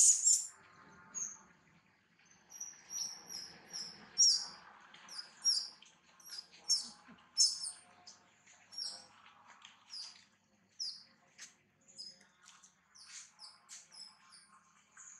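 Series of short, high-pitched animal chirps, about one or two a second, after a brief loud noise right at the start.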